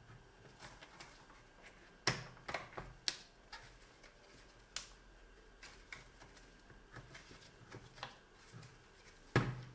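Scattered clicks and knocks of metal and hard plastic as a cigarette-lighter socket is pressed into its housing in a BMW E46 centre console and the console is handled. The loudest come about two and three seconds in, and again near the end.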